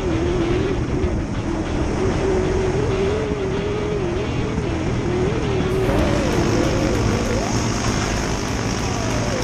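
Off-road motorcycle engine running while riding a rough dirt track, its pitch rising and falling with the throttle, over a rumble of wind and track noise. About six seconds in, the sound turns brighter and the engine note climbs higher.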